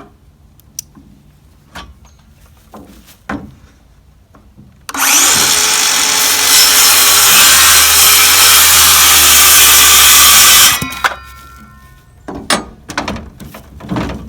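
Light knocks of boards being handled, then a power saw cuts through a 1x4 or 1x6 wooden board for about six seconds. The loud cutting noise, with a steady hum under it, starts about five seconds in and stops abruptly, followed by more knocks and clicks.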